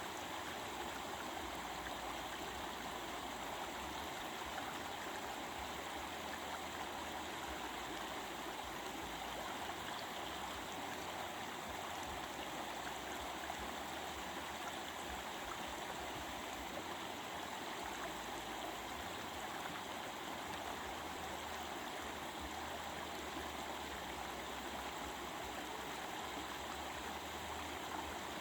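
Stream of running water babbling steadily, an even, unbroken rush.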